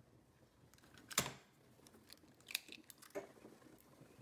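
An eggshell knocked sharply once against the rim of a small bowl about a second in, followed by a couple of faint clicks of shell as the egg is pulled open.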